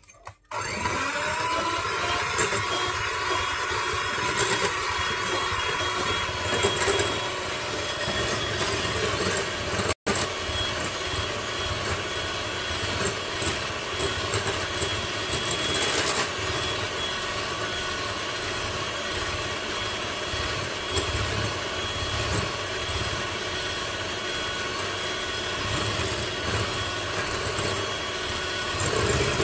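Electric hand mixer switching on about half a second in and then running steadily with a thin high whine, its beaters whisking egg yolks and sugar in a glass bowl. A few brief clicks come through over the motor.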